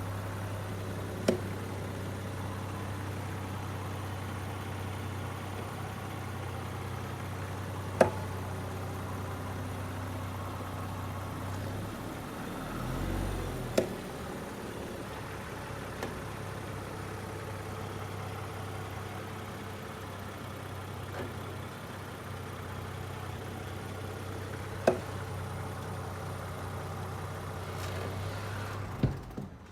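2022 Land Rover Defender running at low speed while moving forward and in reverse, with about six sharp pops or clicks from the wheel area; the loudest comes about eight seconds in. The owner has just fitted Bora 1.25-inch wheel spacers, torqued to spec, and takes the popping to come from them; the cause is unknown.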